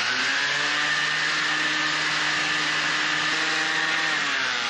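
Handheld electric sander running steadily on wooden rub rails: a constant motor hum and high whine over the rasp of sanding, winding down near the end.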